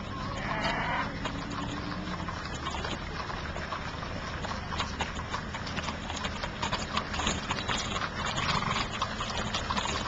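The hooves of many horses clip-clopping at a walk on an asphalt road, a dense, irregular patter that grows louder as the riders approach.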